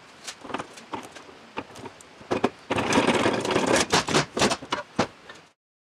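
Steel gear shafts, gears and shift rails clinking and knocking against each other and the transmission case as they are worked up out of a manual transaxle together, with a dense run of metal clatter in the middle. It cuts off suddenly near the end.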